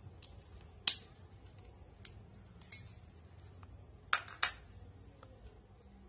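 Small hand stapler clicking shut through folded tissue: a sharp click about a second in, two lighter clicks, and a close pair of clicks a little after four seconds.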